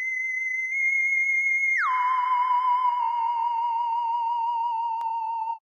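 A high, steady electronic tone that slides down about an octave near two seconds in, then holds with a slight wavering vibrato until it cuts off.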